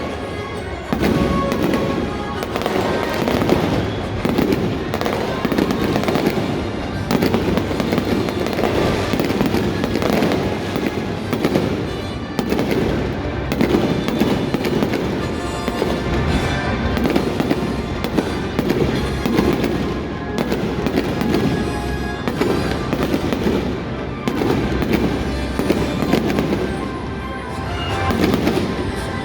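Fireworks bursting in quick, continuous succession over music played through stadium loudspeakers.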